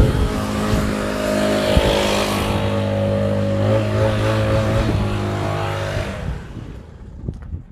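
Engine-driven pressure washer running steadily with the hiss of its spray, as degreaser is sprayed. Both the engine and the spray die away near the end.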